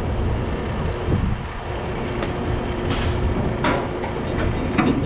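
Heavy engine running steadily with a low drone, with several short knocks and scrapes over it in the second half.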